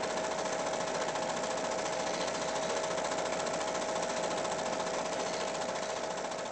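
Film projector running: a rapid, even mechanical clatter with a steady hum, which cuts off suddenly at the end.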